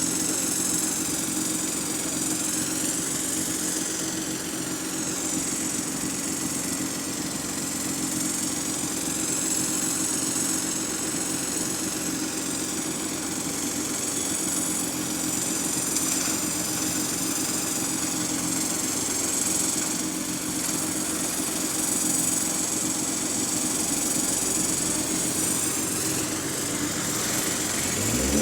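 Bus engine idling steadily, with a high-pitched whine over it that wavers slowly up and down in pitch: the odd noise the bus is making.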